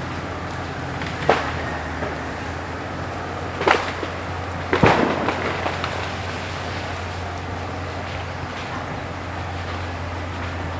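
CAT D6 bulldozer's diesel engine running with a steady low drone, broken by three sharp cracks about a second in, near four seconds and near five seconds, the last the loudest.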